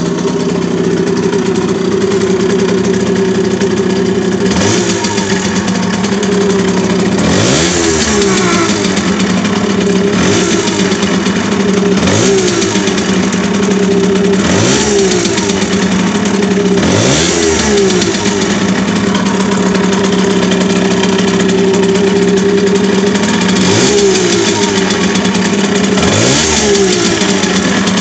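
Simson SR4-2's single-cylinder two-stroke Habicht moped engine idling steadily, blipped about eight times from a few seconds in, the revs rising and dropping back each time. The owner suspects the engine makes an odd noise when the throttle is opened.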